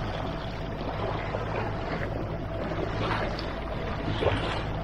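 MacGregor 26X sailboat motoring under its outboard engine: a steady engine hum with water rushing and splashing along the hull.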